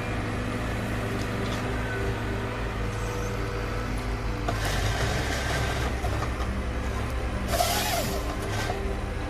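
Heavy machine's engine running steadily, with louder noisy surges about four and a half seconds in and again near eight seconds.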